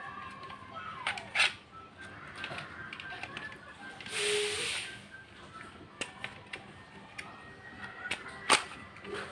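Small scattered clicks and taps of hardware being handled as a SATA SSD is pushed into place inside an all-in-one PC, with a short hiss about four seconds in. Faint background music under it.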